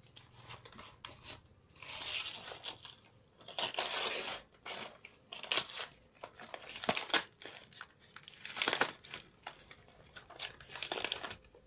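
Brown paper parcel wrapping and packing tape being torn and cut open, in irregular bursts of tearing and crinkling.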